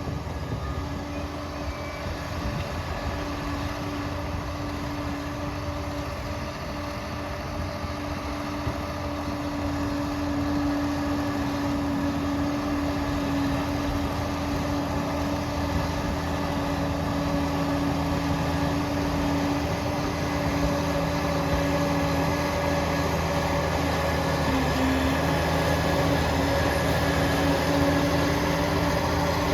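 Liebherr PR 746 crawler dozer's diesel engine running steadily with the rumble of its tracks, getting somewhat louder from about ten seconds in.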